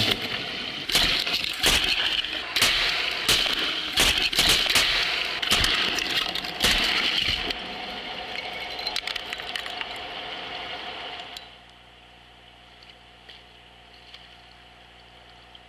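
Underwater Cardox discharge: carbon dioxide gas under high pressure rushing out of the fractured granite as a dense crackling and bubbling with many sharp cracks and pops. It is loud for about the first seven seconds, then thins out and dies away about eleven seconds in to a faint low hum.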